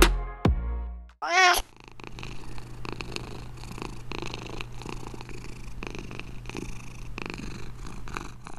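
The last notes of background music fade out in the first second. Then a cat gives one short, wavering meow and purrs steadily with a soft, uneven pulse.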